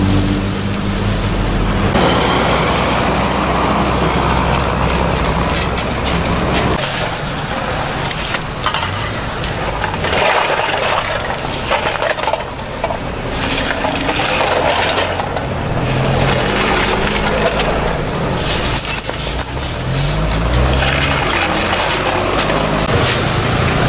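Road traffic with vehicle engines running and passing, and aluminium beer cans clinking and scraping on asphalt as a straw broom sweeps them.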